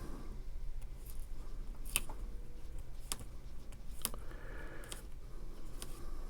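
Paper envelope being handled while a thin adhesive tape strip is applied to it: soft rustling with a handful of small, sharp ticks.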